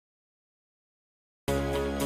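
Digital silence, then background music starts abruptly about one and a half seconds in.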